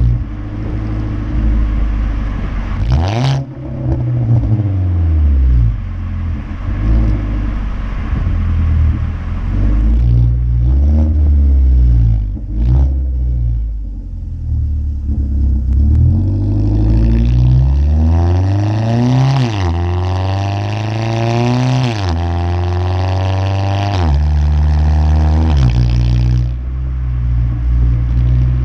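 The 2015 Ford Focus SE's 2.0-litre four-cylinder engine runs through a muffler-deleted exhaust while driving, its revs climbing and falling several times. A few sharp exhaust pops come as the revs drop.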